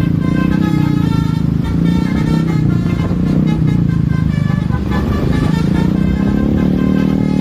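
Basuri 'telolet' multi-tone bus horn playing a quick melody of stepped notes over the bus's loud engine, which rises and falls again about five seconds in.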